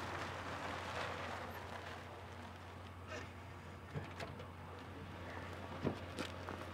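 Quiet background ambience: a steady low hiss and hum, with a few faint soft knocks about three, four and six seconds in.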